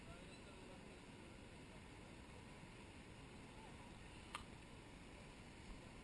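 Near silence: faint steady background hiss, with one short sharp click about four and a half seconds in.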